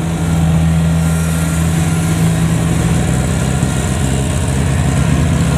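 Kubota DC70 rice combine harvester's diesel engine running steadily, a little louder from about half a second in, as the tracked machine drives off across the field.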